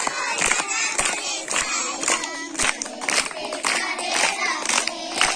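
A young girl singing a song, with other children's voices and scattered hand claps around her.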